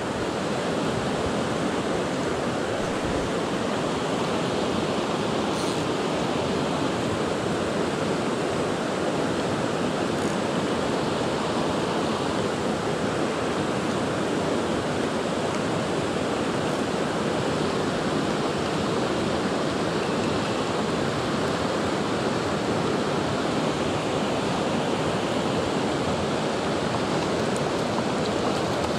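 Steady rush of river water running over a rocky riffle.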